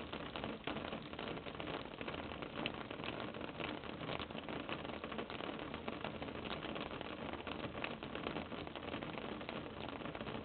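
Steady hiss with faint crackling and rustling, heard through a security camera's built-in microphone in a brooder box of huddled Muscovy ducklings.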